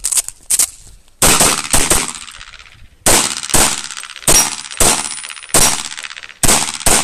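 Rapid pistol shots in an IPSC stage, fired mostly in quick pairs about half a second apart (double taps), about eleven shots in all, with a pause of about a second after the first four. Each shot has a short ring-out after it.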